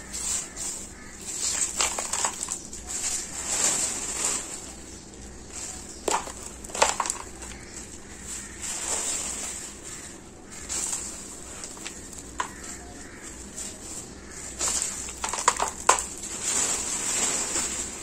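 Dry, crumbly sand-cement mix being crumbled by hand and dropped into a basin: gritty crunching and pattering in repeated swells, with a few sharp cracks as lumps break, twice in pairs.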